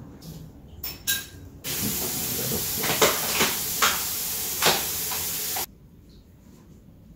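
A steady hiss of recording noise switches on abruptly and cuts off abruptly about four seconds later, with a few short, sharper sounds inside it. Before it come a few faint clicks.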